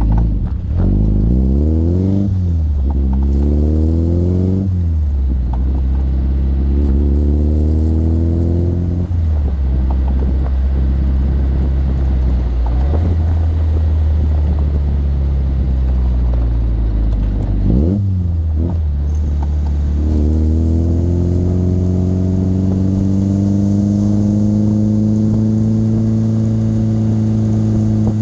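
Triumph Spitfire Mk IV's four-cylinder engine pulling the car through the gears, revs climbing and then falling back at each gear change about four times, then rising slowly and holding steady at cruising speed.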